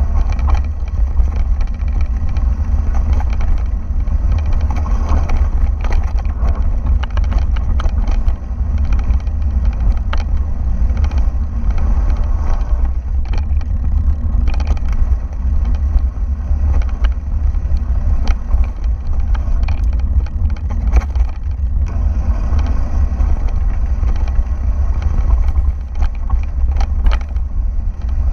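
Heavy wind buffeting on an action camera's microphone while riding, with frequent clicks and rattles from tyres rolling over a rough gravel trail.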